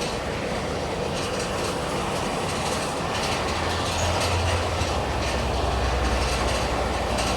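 Gas brazing torch flame running steadily as the new valve is brazed onto the compressor's copper refrigerant line, with a low hum coming in about halfway.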